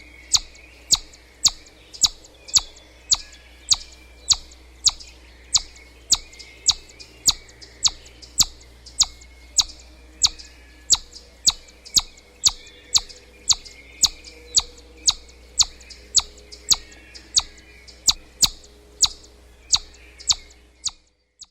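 Chipmunk calling: a sharp, high chip repeated steadily, a little under two times a second, the repetitive chip call that chipmunks give as an alarm. Fainter chirping sits underneath, and the calls stop just before the end.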